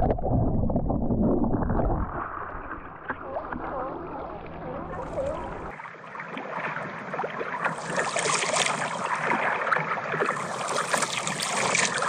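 Water rushing and bubbling over a kayak's deck camera as the kayak rolls under, heavy and muffled. About six seconds in it changes suddenly to a lighter, hissing wash of water with crackling bubbles.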